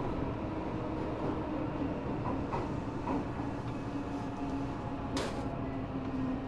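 Interior running sound of an Eidan 6000-series subway car, whose Mitsubishi three-level VVVF inverter was taken from a 7000-series train. Wheel and track rumble runs under a steady motor tone as the train comes into the station. About five seconds in there is one short, sharp hiss.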